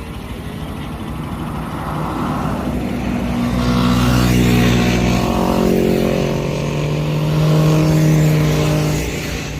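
Large-displacement motorcycle engine running loudly, growing louder twice and easing back near the end.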